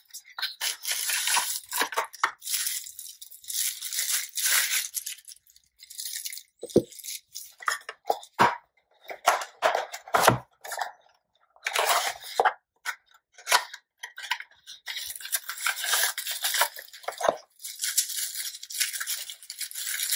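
Cardboard and paper packaging being handled: irregular rustling, scraping and sliding of small card boxes, with a few light knocks against the box or table. Near the end, plastic bubble wrap crinkling as a sensor is unwrapped.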